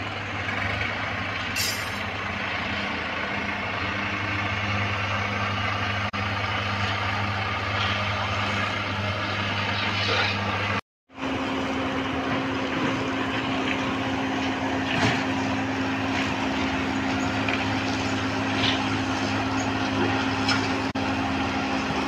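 Diesel engines of site machinery running steadily, a constant low drone. The sound drops out for an instant about eleven seconds in and comes back as a different, higher-pitched steady hum.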